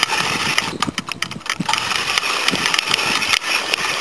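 Fishing reel being cranked against a hooked carp: a steady mechanical whirring with many quick clicks.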